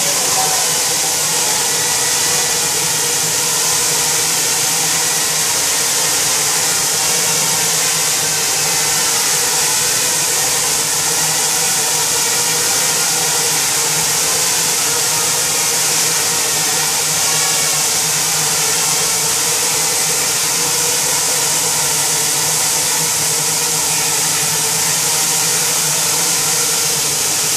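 Six small quadcopter drones flying together, their propellers making a steady high whirring hiss with several overlapping motor hums.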